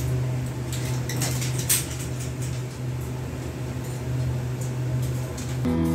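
Steady low hum of room equipment with scattered light clicks and taps, one sharper near two seconds in; guitar music comes in just before the end.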